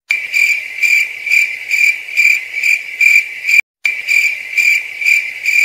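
Cricket chirping: a steady high trill that pulses about twice a second, broken by a brief dead gap near the middle. It is the stock "crickets" sound effect laid over a clip to mark an awkward silence.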